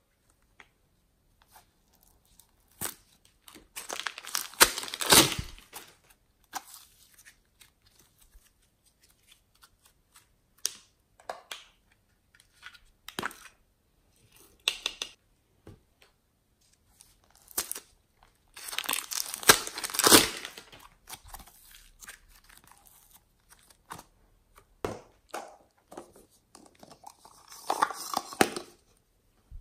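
Close-up handling of plastic, a piping bag squeezed to pipe clay and small plastic containers picked up and opened: intermittent crinkling and rustling, loudest around 4–5 s and 19–21 s and again near the end, with scattered light clicks between.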